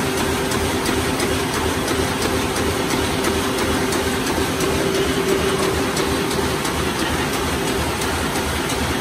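Muller Martini Tempo saddle stitcher running at production speed: a loud, steady mechanical clatter of its cams and stitching heads, with a fast, regular clicking over a steady hum.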